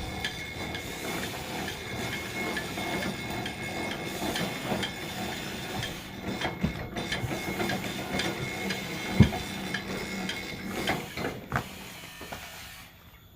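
Sawmill machinery running with a steady clatter of small clicks and rattles. A single loud knock comes about nine seconds in, and the noise eases off near the end.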